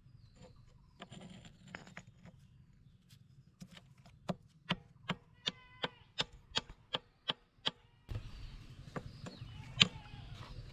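Bait being chopped with a knife on a small board: about a dozen sharp chops, roughly three a second, some with a short metallic ring. A louder outdoor background follows, with one sharp knock near the end.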